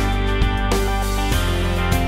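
Background music: an instrumental track with held notes that change every half second or so.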